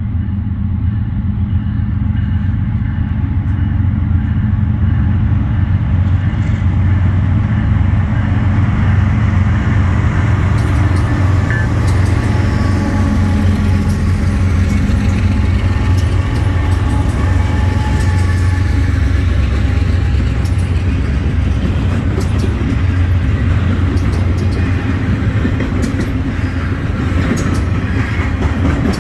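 Norfolk Southern diesel freight locomotives drawing near and passing with a heavy, steady low engine drone, then the intermodal container cars rolling by, wheels clicking over the rail joints from about ten seconds in.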